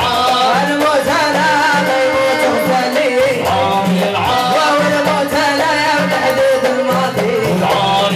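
Live Moroccan chaabi band music: a wavering melodic lead line over a steady hand-drum beat.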